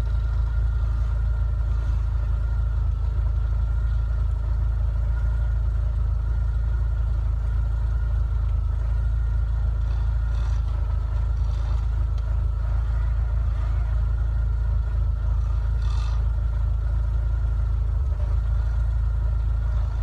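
Steady engine rumble of a solid-axle-swapped Toyota 4Runner working up a snowy trail some way off, with a faint steady whine over it.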